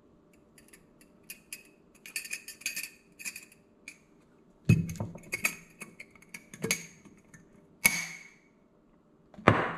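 Glass flip-top jar with a wire clasp clinking and tapping as flour is shaken out of it into a glass bowl: light ticks in the first half, then four louder sharp knocks of glass, the last near the end the loudest.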